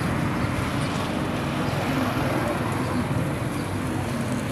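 Street traffic noise: a steady engine hum from vehicles on the road, with the continuous din of a busy street.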